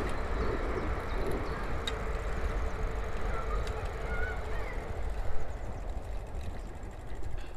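Wind rumbling on the microphone and bicycle noise while riding, with a few faint bird chirps and a brief bump about five seconds in.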